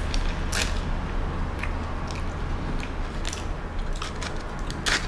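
A person biting and chewing a crispy-crusted fried pie, with a few sharp crunches spread through the chewing over a steady low hum.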